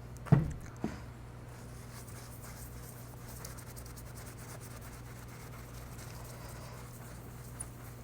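A thump and a smaller knock near the start, then steady scratchy rubbing of a polishing pad or cloth on the disco light's glass as the haze is buffed off, over a low electrical hum.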